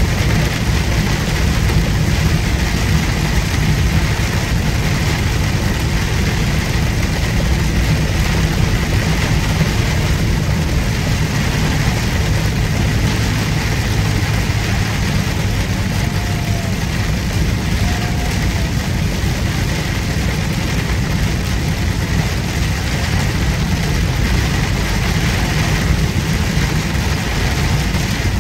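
Steady drone of a semi truck's diesel engine and tyres on a wet highway, heard inside the cab while driving: a strong low rumble under an even hiss of road and spray noise, with a faint steady high whine.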